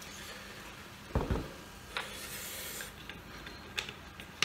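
A soda bottle set down on a wooden table with a low double thud about a second in, followed by a click, a brief rasping rub and a few light clicks.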